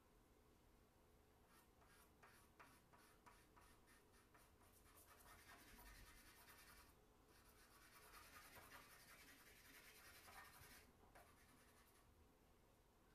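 Charcoal scratching across drawing paper, faint: first a run of quick separate strokes, then denser continuous scribbling with a brief break in the middle. It stops near the end.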